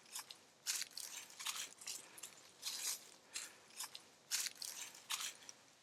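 Footsteps crunching through dry grass and leaves, about two crisp steps a second.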